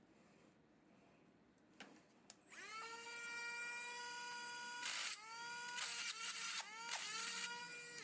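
Small high-speed electric motor whirring in several short runs. Each start is a quickly rising whine that then holds steady. Two sharp clicks come just before the first run.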